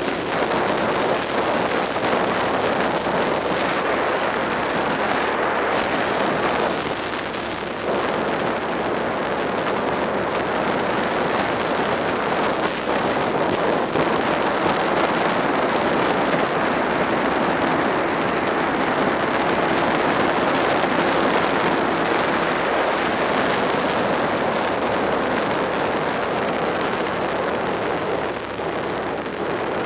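Suzuki SV650's V-twin engine running steadily at road speed, under a steady rush of wind on the microphone. The sound drops briefly about seven seconds in and again near the end.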